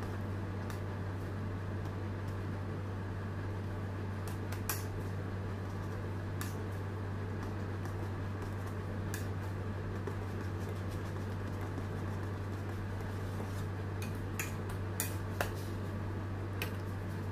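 A steady low hum throughout, with a few light, sharp clicks of a metal spatula against the cake board and turntable while buttercream is spread. There is one click about five seconds in and a small cluster of them near the end.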